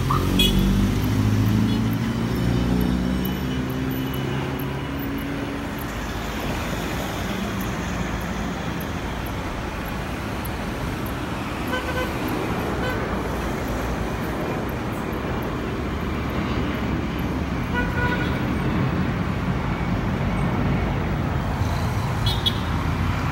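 Steady roar of an Airbus A320 airliner climbing overhead, mixed with street traffic. A few short horn toots come in the second half.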